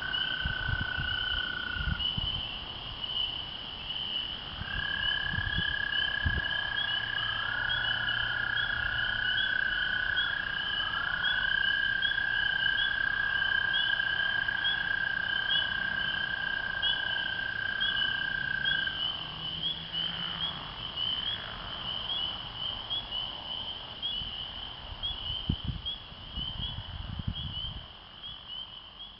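Frog chorus of spring peepers: a dense, unbroken run of high, rapidly repeated peeps. Over it, American toads give long, steady trills at a lower pitch. One trill ends about two seconds in. Another starts about five seconds in and lasts some fifteen seconds, with a second toad trilling over it for part of that time. The chorus fades near the end.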